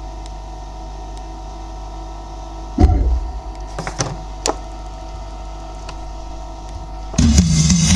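Steady hum, then a short deep bass hit about three seconds in; near the end a subwoofer starts playing bass-heavy electronic music loudly.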